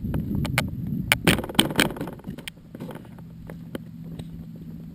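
Footsteps and rustling while walking through tall grass and then onto gravel, with handling knocks and bumps from the carried camera, loudest in the first two and a half seconds. After that a faint steady hum runs under quieter steps.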